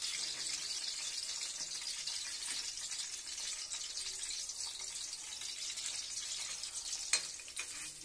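Bitter gourds sizzling in hot oil in an iron kadai, a steady high hiss. A single sharp metal clink comes about seven seconds in, the spatula striking the pan.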